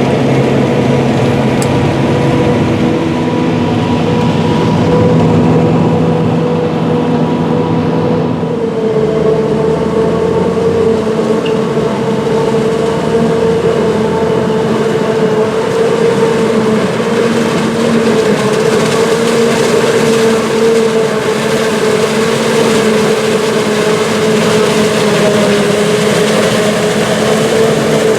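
Big diesel farm machinery running steadily under load, a steady whine over the engine noise, with a shift in tone about eight seconds in.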